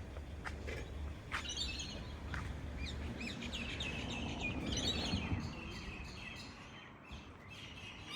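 Birds chirping in short bursts of quick high notes, a burst every second or two, over a low background rumble, with a few sharp clicks in the first second or so.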